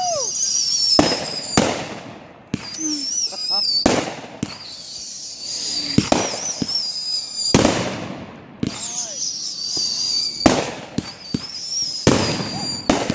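Fireworks going off: a string of about ten sharp bangs, each trailing off in a short echo, spread across the thirteen seconds. A high, wavering whistle runs over them.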